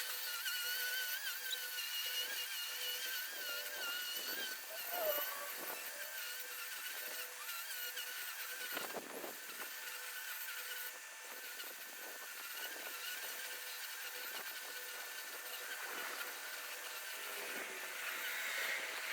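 String trimmer (weed eater) running at high speed, a steady high whine whose pitch wavers up and down as it cuts.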